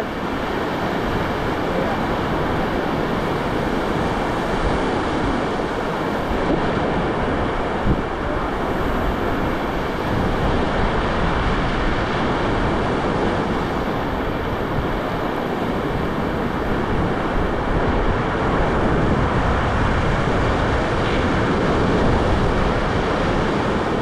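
Steady rushing noise of river water, with wind buffeting the microphone.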